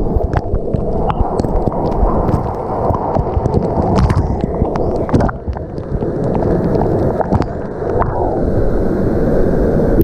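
Waterfall water pouring straight onto a GoPro camera: a loud, dense churning rush of water with many sharp taps of drops and spray striking the camera.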